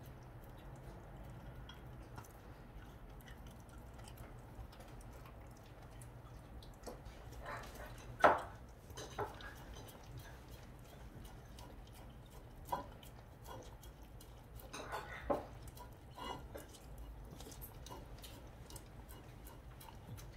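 Jindo dog licking a ceramic plate clean, with small wet tongue clicks and the plate scraping and knocking on the wooden floor a few times as it is nosed about, the loudest knock about eight seconds in.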